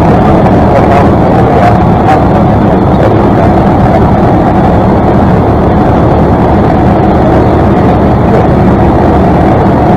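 Piston engine and propeller of a light single-engine airplane running steadily, a loud, unchanging drone heard inside the cockpit.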